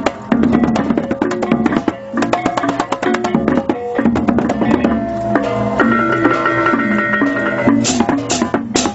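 Balinese balaganjur gamelan playing on the march: rapid, dense strikes of cymbals and drums over ringing pitched gong tones, with a few louder crashes near the end.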